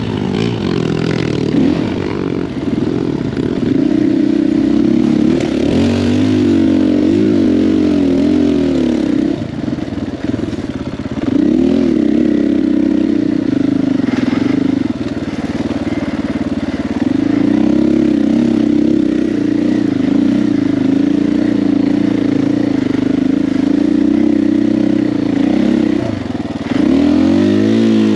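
KTM 500 EXC-F dirt bike's single-cylinder four-stroke engine running under way. Its note rises and falls over and over as the throttle opens and closes.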